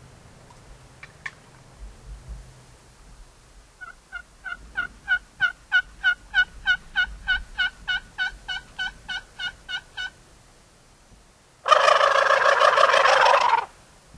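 Turkey yelping: a steady run of about twenty yelps, about three a second. Then, near the end, one loud gobble lasting about two seconds.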